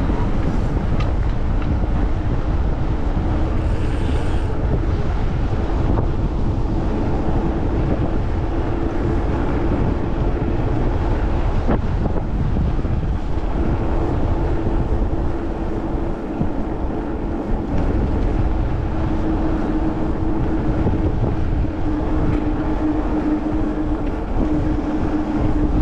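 Wind rushing over the microphone and tyres rumbling on asphalt while riding an electric mountain bike, with a steady hum that comes in about a third of the way through and grows stronger in the second half.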